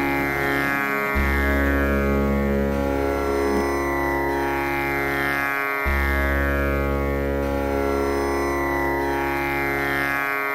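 Instrumental Indian classical-style music: a sustained plucked-string drone over a deep bass note that is struck again about every four and a half seconds.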